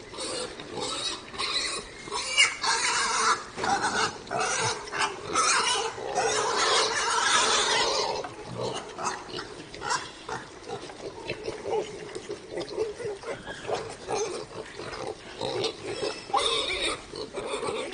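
A group of young pigs grunting and squealing, a dense overlapping chorus that is busiest in the first half and breaks into shorter, separate calls in the second.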